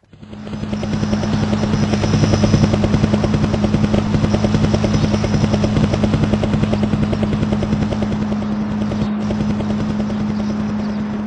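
Tandem-rotor helicopter lifting off and climbing: loud, rapid rotor-blade chop over a steady low drone, swelling up in the first second or so and easing off slightly near the end.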